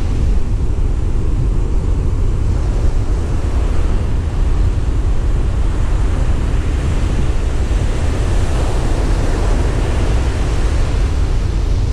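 Ocean surf breaking steadily on a beach, mixed with constant wind buffeting the microphone as a deep rumble.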